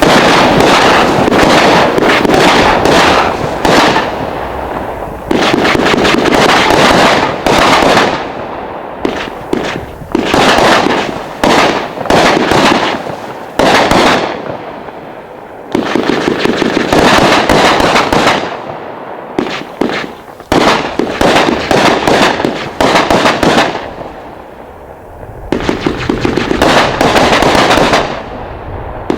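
500-gram consumer firework cake firing: rapid shots and crackling in loud volleys of a few seconds each, separated by brief lulls.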